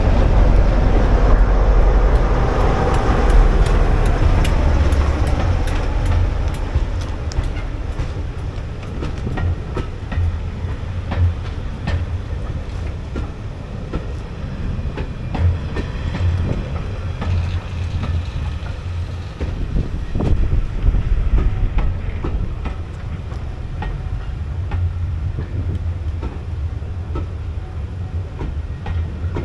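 A train running past on the line, its wheels clacking over rail joints with a deep rumble underneath, loudest in the first few seconds and then easing off as the clicks carry on.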